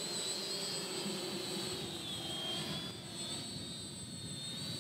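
Quadcopter's brushless motors and 8-inch props whining in flight at a distance, the whine wavering slightly in pitch as the motors correct its bobbling in the wind, and easing a little past the middle.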